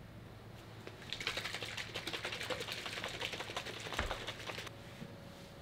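A lidded plastic tumbler holding milk and protein powder is shaken hard by hand, giving a fast, busy rattling that starts about a second in and stops short of five seconds. There is a heavier knock about four seconds in.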